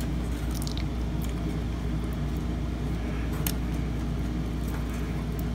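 Steady low background hum, with a few faint clicks and rustles of hands handling wiring and plastic cable ties inside a desktop computer case.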